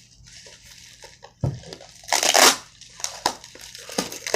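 Packaging being handled as accessories come out of the box: crinkling and rustling, with a dull thump and one louder rustle about two seconds in, then shorter crinkles and clicks.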